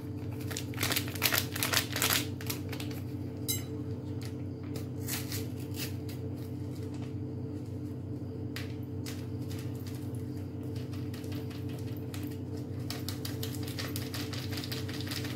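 Paper sachets of baking powder being handled, opened and emptied over a mixing bowl: crinkling and rustling with scattered small clicks, busiest early on and again near the end, over a steady low hum.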